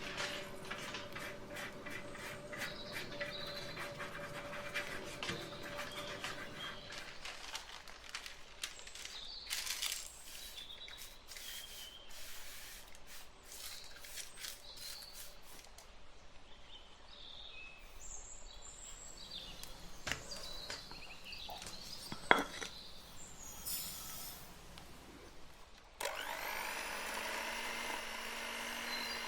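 Kitchen preparation sounds: a utensil rubbing and scraping in a bowl with many small clicks and taps, and one sharp knock about three quarters of the way through. A steadier, continuous sound takes over near the end.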